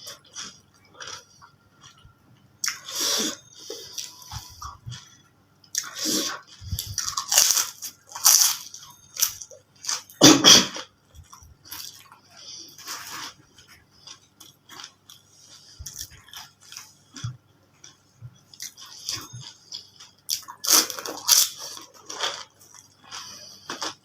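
Close-miked chewing of crunchy food: irregular bites and bursts of crunching with quieter pauses between them, loudest about ten seconds in.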